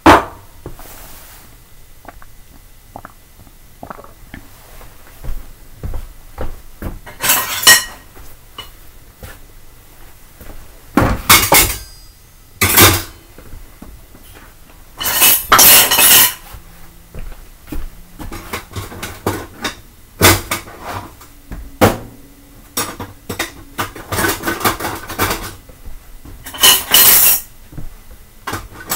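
Dishes being done: plates and cutlery clattering and clinking in irregular bursts a few seconds apart, with a loud clink right at the start.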